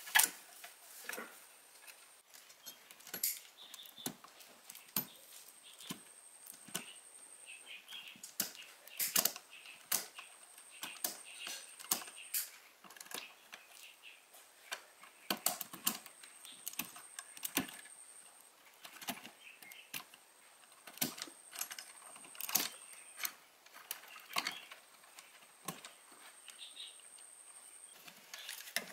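Irregular clicks and light clinks of small hard parts and tools being handled, with a faint high-pitched whine that comes and goes several times.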